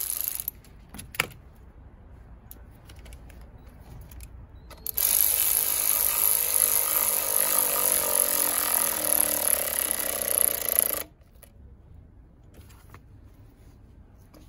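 Cordless electric ratchet running steadily for about six seconds, starting about five seconds in and cutting off sharply, as it tightens a hose clamp on a silicone intercooler hose. A short burst of the tool comes right at the start.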